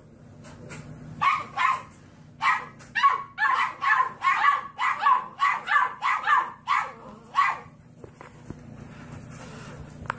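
Puppy barking in a rapid string of short, high barks, about three a second, for around six seconds, then stopping.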